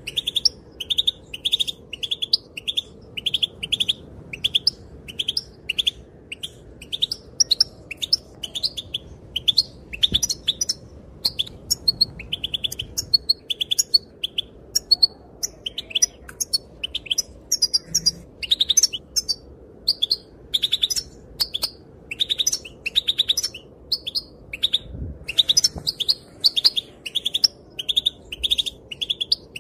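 Female European goldfinch calling: rapid runs of short, high twittering notes, repeated almost without pause.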